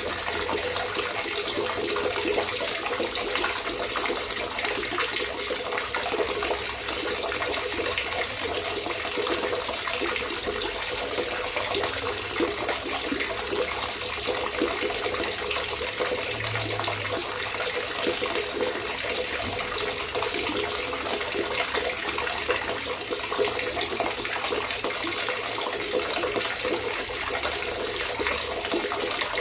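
Water trickling and gurgling in a steady, unbroken stream.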